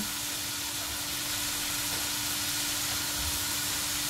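Potato fries deep-frying in hot oil, a steady, even sizzle.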